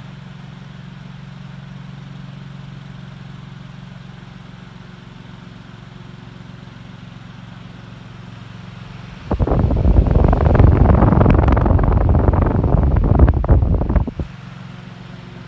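Emerson 77646-AS table fan running on high speed, a steady low electric-motor hum. About nine seconds in, the fan's air stream blasts the microphone for about five seconds, a loud rough rush, then the steady hum returns.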